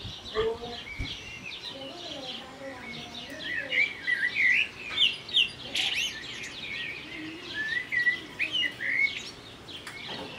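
Small birds chirping: many short, quick calls overlapping, busiest around the middle.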